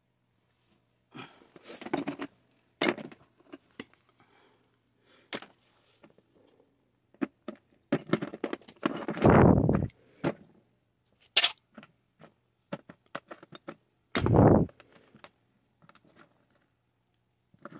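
Metal parts of a stripped butane stove burner and tools being handled: irregular clinks, knocks and scrapes, with a few louder clattering bursts.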